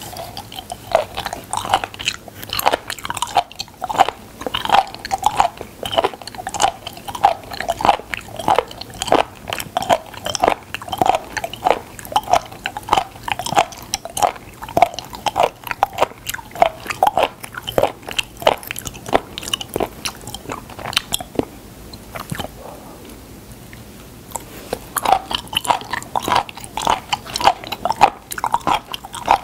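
Close-miked chewing of raw sliced spoon worm (gaebul): a steady run of short, crunchy chews, with a pause of a few seconds about three-quarters of the way through before the chewing resumes.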